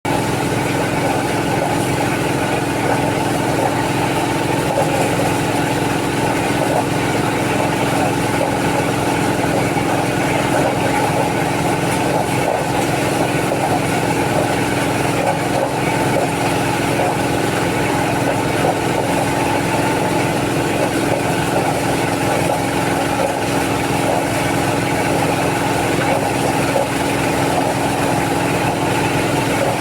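Engine-driven corn sheller running at a steady speed, its small engine going evenly without any change in pace.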